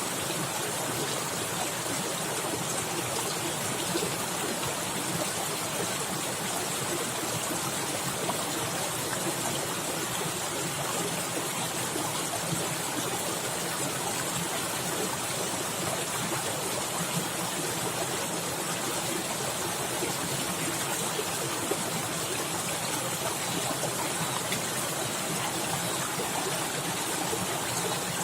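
Fast-flowing forest stream splashing and gurgling over rocks, a steady rush of water with many small splashes.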